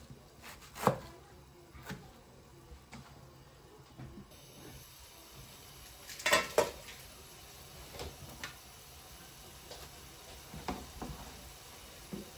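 A knife chopping leafy greens on a plastic cutting board, a few sharp cuts about a second apart. About four seconds in it changes to food sizzling steadily in a non-stick wok, with spatula knocks and clatter against the pan, the loudest a cluster of knocks just after six seconds.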